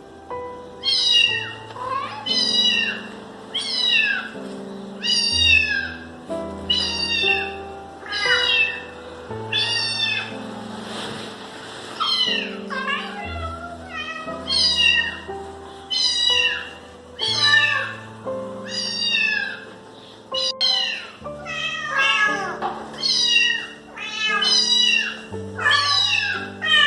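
A cat meowing over and over, roughly once a second, each meow falling in pitch, with a short break near the middle. Background music with held notes plays underneath.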